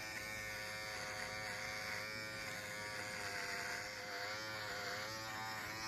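Electric shaver running steadily as it cuts through a long beard, a buzzing hum that wavers slightly in pitch as it meets the hair.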